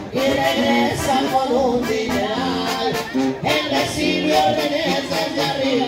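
Song with singing over instruments and a steady beat.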